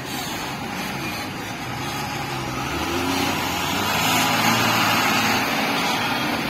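Heavy diesel dump truck driving past close by, its engine running and tyres rolling on the road, growing louder to a peak about four seconds in.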